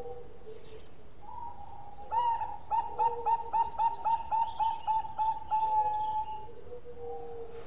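Zebra dove (Bangkok-strain perkutut) singing its cooing song: a rapid rippling run of short staccato coos, about four a second, closing on a longer held note.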